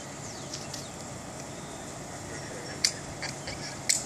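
Backyard ambience: birds chirping, with a few short sharp high chirps near the end, over a steady low hum.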